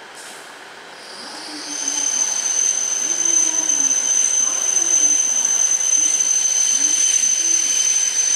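E7 series Shinkansen train pulling into the platform and slowing to a stop, a rushing noise with a steady high-pitched whine that sets in about a second in.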